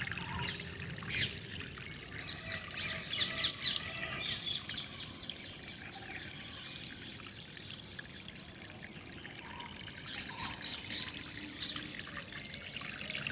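Water trickling and pouring steadily, with many small birds chirping and twittering over it; the chirping thins out in the middle and picks up again near the end.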